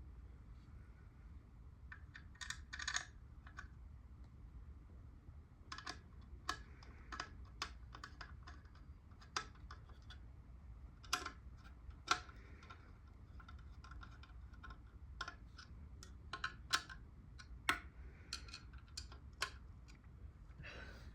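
Irregular sharp clicks and light metallic taps of ceiling fan parts and screws being handled and fitted, some close together, the loudest about halfway through and near the end, over a low steady hum.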